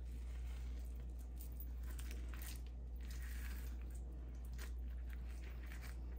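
Knife scraping and cutting along salmon skin on a plastic cutting board: faint, uneven scrapes and small clicks, busiest about halfway through, over a steady low hum.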